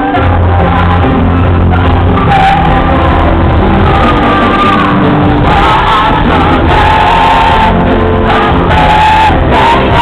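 Live gospel music played loud over a concert hall's sound system: a band with heavy bass under a lead singer and backing voices, recorded from among the audience.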